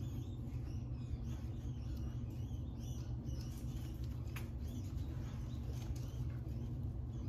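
Pet rats squeaking faintly and moving about in wood-shaving bedding, with a few short high squeaks, one sharper about four seconds in, over a steady low hum.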